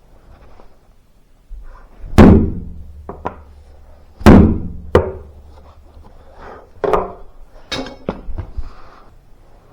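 Several hard knocks, the two loudest about two seconds apart with a short low ring after each, then lighter knocks. These are blows on metal parts during a washing machine drum bearing repair.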